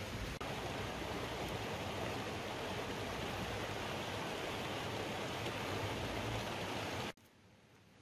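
Rushing mountain river flowing over rocks: a steady, even water noise that cuts off abruptly about seven seconds in.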